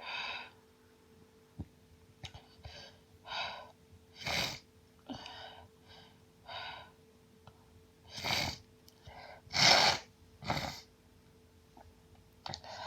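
A woman's hay-fever sneezing fit: short gasping, catching breaths between several sneezes, one about four seconds in and three more close together between about eight and eleven seconds, the loudest near ten seconds.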